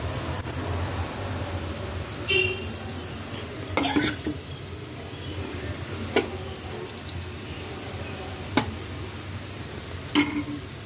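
Steel spoon and spatula knocking and scraping against a kadai and a tawa, five sharp metal knocks with the loudest about four seconds in, over a faint steady sizzle of a rice rotti cooking on the tawa.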